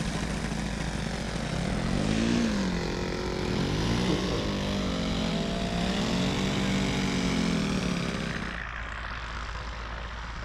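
Small petrol engine and propeller of a radio-controlled model airplane in low flight, its pitch rising and falling three times as it passes and turns. About eight seconds in the sound drops suddenly to a quieter, steadier engine.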